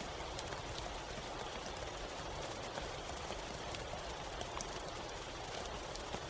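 Soft, steady rain: an even hiss of falling rain with many small, sharp drop ticks scattered through it.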